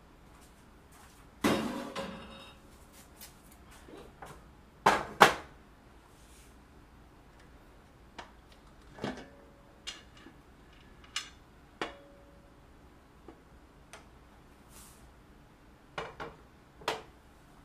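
Kitchen clatter of a metal pressure canner and its glass canning jars being handled and set down: a heavy knock about a second and a half in, two more around five seconds, then scattered lighter clinks and taps, a few ringing briefly.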